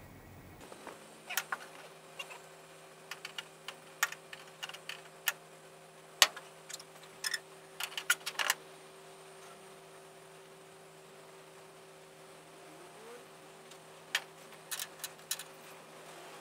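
Irregular metallic clicks and clinks of nuts, bolts and washers being handled and started by hand on a pickup's rear fender: a run of sharp clicks over the first half, then a few more near the end, over a faint steady hum.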